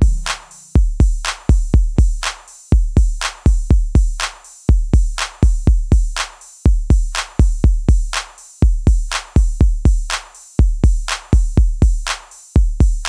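Background electronic music reduced to a drum-machine beat: deep kick-drum hits in a repeating pattern, each with a crisp high click on top, and no melody.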